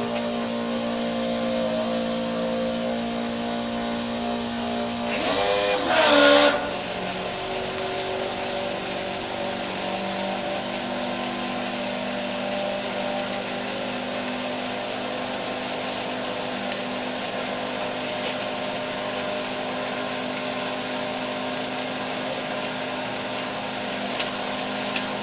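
Small 12-volt electric water pump running steadily, with the hiss of water spraying from a stainless steel cone mister nozzle. About six seconds in there is a brief louder wavering surge, after which the pump's hum settles at a lower pitch.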